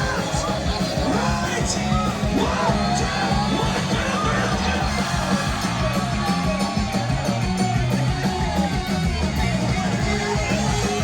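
Live rock band playing with electric guitar and a heavy low end, while the crowd yells and sings along.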